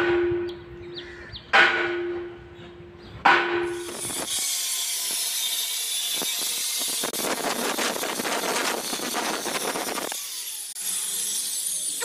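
Three sharp metallic strikes about a second and a half apart, each leaving a ringing tone. Then an angle grinder runs with a high hiss and cuts through steel rebar; the cutting is loudest and harshest between about 7 and 10 seconds in.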